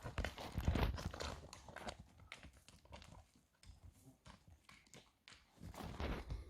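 A horse's hooves and a person's footsteps at a walk on the ground: an irregular run of knocks and scuffs that goes fainter for a couple of seconds in the middle.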